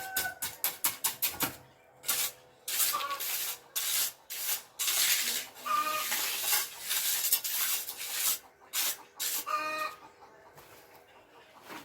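Concrete being mixed by hand: repeated gritty scraping strokes through the mix, quick at first, then longer scrapes. Chickens cluck a few times in the background.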